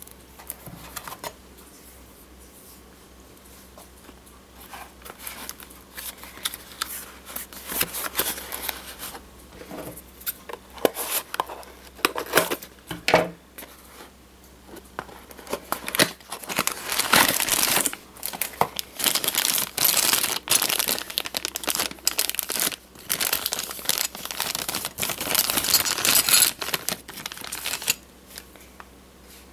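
Packaging of a miniature airliner model being unwrapped: crinkling and tearing in irregular bursts, heavier in the second half and stopping shortly before the end.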